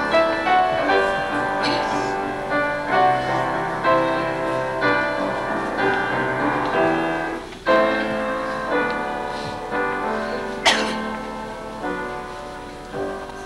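Instrumental accompaniment, piano to the fore, playing a chordal interlude between sung verses, with no voice over it. A single sharp click sounds about eleven seconds in, and the music softens near the end.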